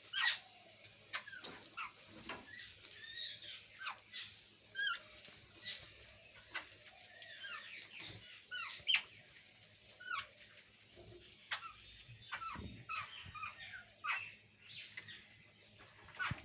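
Jungle babblers calling: a steady run of short, harsh, squeaky notes, many falling in pitch, coming at an uneven pace with small clicks among them.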